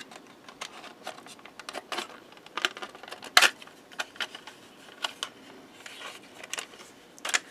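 Light, irregular clicks and taps of plastic model-kit parts being handled: a mock-up chassis and roll cage test-fitted into a plastic model car body. The sharpest click comes about three and a half seconds in.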